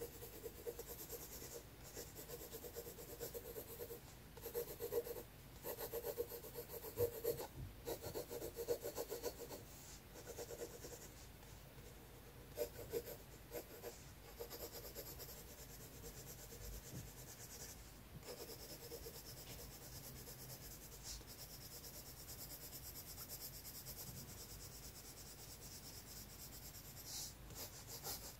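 Pencil scratching on sketchbook paper in repeated shading strokes, louder and busier for several seconds near the start.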